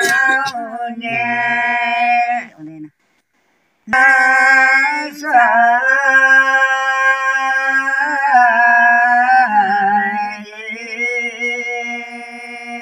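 Elderly man singing a slow village folk song unaccompanied, in long drawn-out held notes that waver and slide. The voice cuts out completely for about a second just under three seconds in, then carries on.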